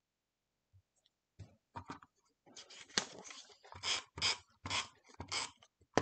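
Paper cardstock being handled: a run of short rustles and scrapes as a patterned paper wedge is lifted and slid about on a cutting mat, starting about a second and a half in.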